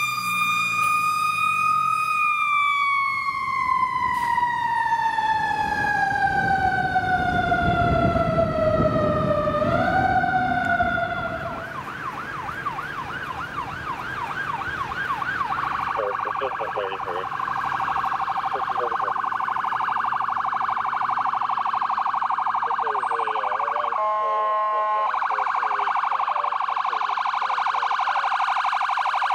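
Fire truck siren sliding slowly down in pitch for about ten seconds, the way a mechanical siren winds down, with a brief pickup near the end and a truck engine rumbling underneath. Then electronic sirens yelp and wail, and a horn blasts once about 24 seconds in.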